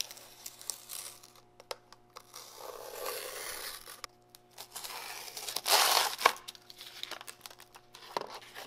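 Clear plastic packaging film being peeled and torn off a card backing holding steel gusset plates: irregular crinkling and tearing rustles, loudest about six seconds in.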